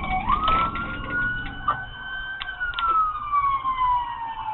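Police car siren in wail mode, one slow cycle: it rises quickly at the start, climbs gently to a peak about halfway through, then falls steadily, over a low rumble of a moving vehicle.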